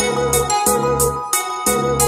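Background music: held keyboard notes over a steady beat of bass pulses and about three high drum hits a second.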